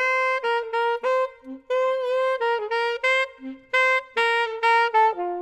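Jazz alto saxophone playing a melodic line of short, separate notes, stepping down to a lower note near the end.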